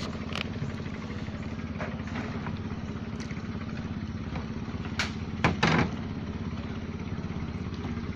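Small boat engine running steadily at an even speed, with a few sharp knocks about five seconds in.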